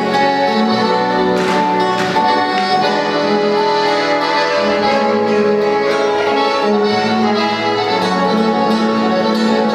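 A trio playing Latin American music live, with long held melodic notes over a lower line and a couple of sharper accents about one and a half and two seconds in.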